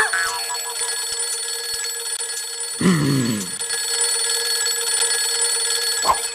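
Alarm clock bell ringing steadily and without a break. About three seconds in, a short sound slides down in pitch over it.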